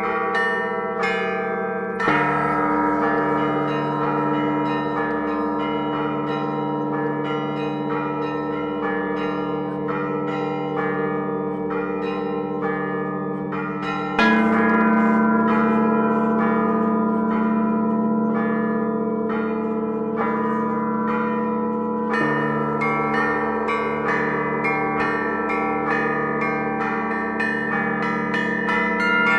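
Russian Orthodox church bells rung by hand by a bell-ringer: rapid patterns on the small bells over the long hum of the larger bells. A heavy bell is struck about two seconds in and again about halfway through, each time making the ringing fuller and louder.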